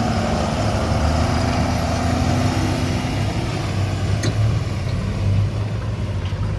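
Heavy diesel engine running steadily with a low hum.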